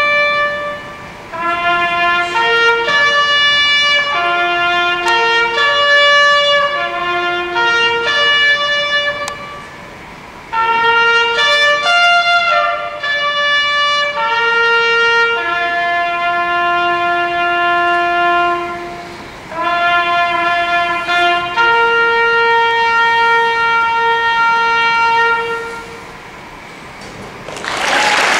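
Solo trumpet playing a slow melody of held notes in short phrases, with brief breaks between them. The last note fades about 26 s in, and applause breaks out just before the end.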